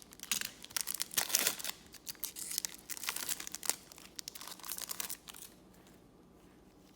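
Trading cards being handled and flipped through, with crinkling and rustling from the cards and pack wrapper. The rustling dies away about five seconds in.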